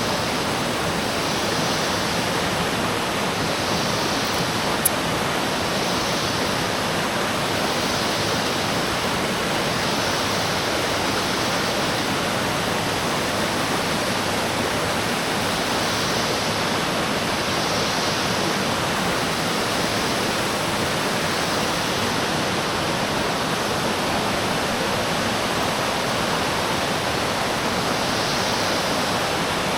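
Steady rushing noise like running water, with faint high pulses recurring every second or two and one short click about five seconds in.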